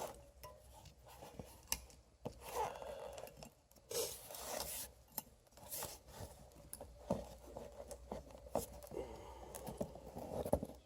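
Small metal brake hardware being handled and fitted on the rear caliper bracket: scattered metal clicks and a few longer scrapes, the loudest scrape about four seconds in.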